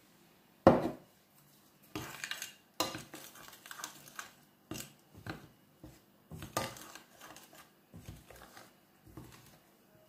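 Metal spoon scraping and clinking against a glass mixing bowl while stirring flour and olive oil together for a dough, in irregular strokes, with one sharp knock about a second in.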